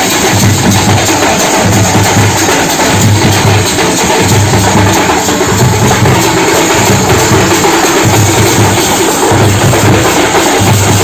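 Drums played with sticks in a loud, continuous rhythm: a deep beat about once a second under a dense, fast clatter of strokes.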